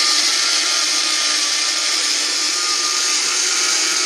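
Personal bullet-style blender running steadily with a loud, even whirr, pureeing chopped onion and garlic into a liquid paste.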